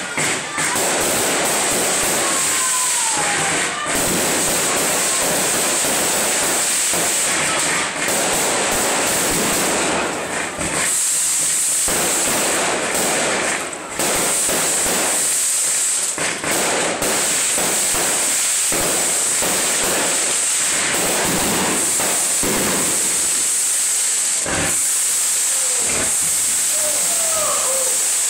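Small boxed consumer firework burning with a steady, loud hiss, broken by a few brief dips and a couple of short whistle-like glides.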